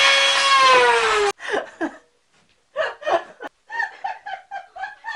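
Dremel rotary tool driving a popsicle stick machine gun, running with a high steady whine that winds down in pitch and cuts off about a second in. Then a person laughs in short bursts.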